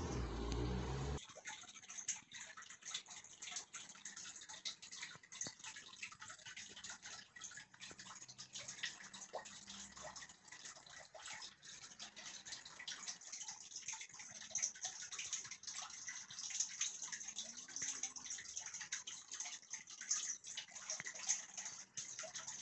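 A steady low hum cuts off about a second in. It is followed by a continuous scatter of soft crackles and small clicks from paper being handled: the flashlight's printed instruction manual held and shifted in the hands.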